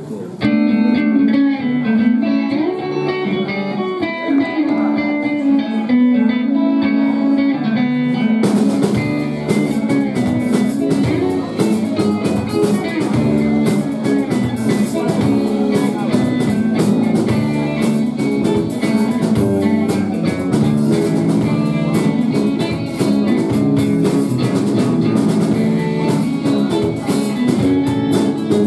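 Live rock band playing an instrumental passage: electric guitar notes open the song, and the drum kit with cymbals comes in about eight seconds in, after which the full band plays on with a steady beat.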